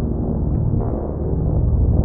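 Ambient drone music: a dense, low, sustained drone with faint soft ticks recurring about once a second.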